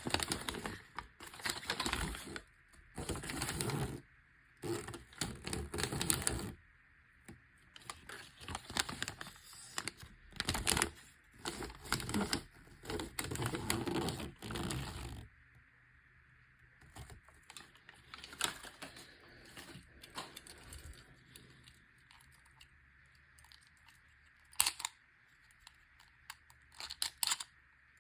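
Packaging being torn open and handled: repeated bursts of tearing and crinkling for about the first fifteen seconds, then quieter rustling with a few sharp clicks near the end.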